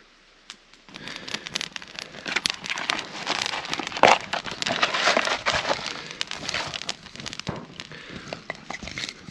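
Small campfire of birch bark and twigs crackling and popping as it catches, starting suddenly about a second in.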